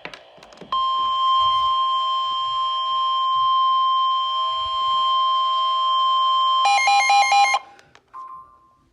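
NOAA Weather Radio's 1050 Hz warning alarm tone: a loud, steady single tone lasting about seven seconds that signals an urgent weather warning message is about to be broadcast. Near its end a short burst of rapidly alternating tones overlaps it, and a brief faint tone follows just after it cuts off.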